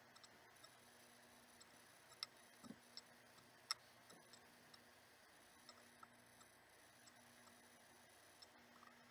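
Near silence with scattered faint clicks and light taps, two sharper ones about two and three and a half seconds in: small Christmas decorations being handled and set in place on a bird cage.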